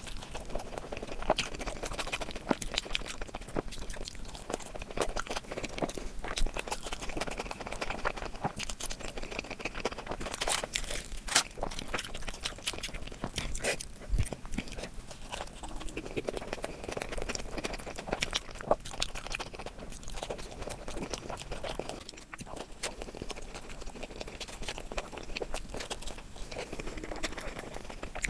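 Close-miked eating: a person chewing and biting food, with a dense run of small wet clicks and smacks.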